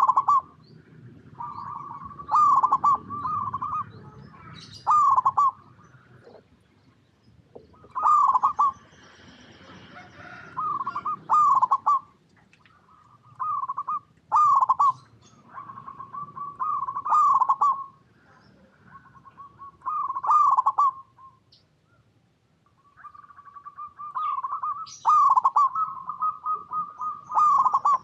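Zebra dove (perkutut) cooing over and over. Each phrase is a quick run of loud, rolling notes, linked by softer held coos, and a new phrase comes every two to three seconds.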